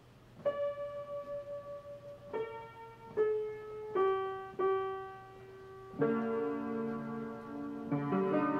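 Slow solo piano music: a few single notes stepping downward, then fuller sustained chords from about six seconds in.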